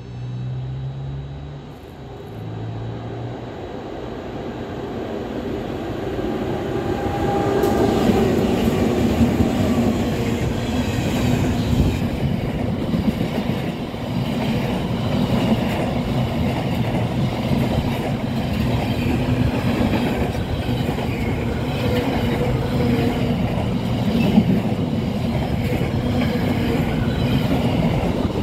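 A container freight train running through on the near track. Its noise builds over the first several seconds, then the wagons' wheels give a loud, steady rumble and clatter on the rails.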